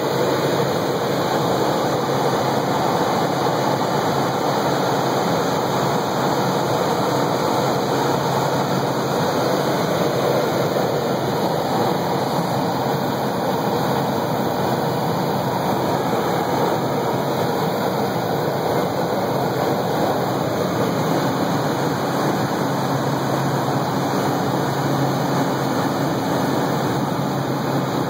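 Helicopter in flight, heard from inside the cabin: a steady, even drone of engine and rotor noise with a low hum, unchanging throughout.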